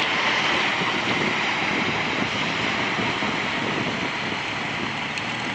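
Steady rushing noise of a Cessna 180B floatplane running on the water: water against the floats mixed with wind, with no clear engine note, easing off slightly.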